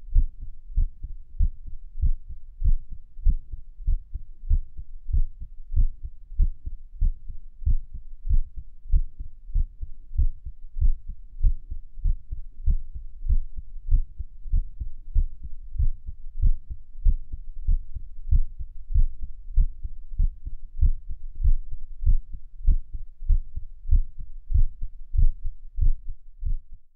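A human heartbeat recorded over the chest at Erb's point: a run of low, dull lub-dub thumps repeating without a break. It cuts off abruptly at the very end.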